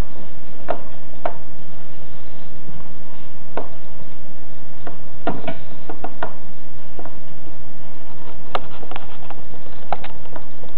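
About a dozen light, irregular clicks and taps of handling as speaker wire is worked into a car amplifier's screw terminals, over a steady background hiss.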